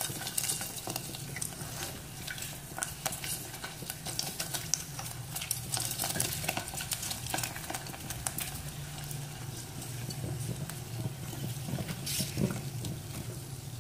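Prawn crackers deep-frying in hot cooking oil, sizzling steadily with many small pops and crackles as they puff up.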